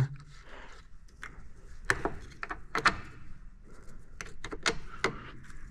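Scattered light clicks and knocks of a hand fitting a ground cable back onto a truck battery terminal.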